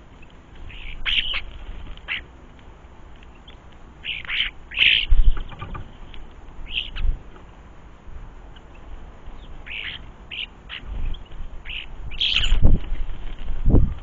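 Common starlings giving short, repeated calls, loudest about five seconds in and again near the end. A few dull thumps come in between, two of them close together near the end.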